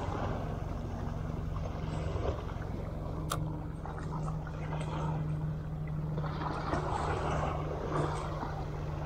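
A motor's steady low drone over a wash of wind and water noise, with one sharp click about three seconds in.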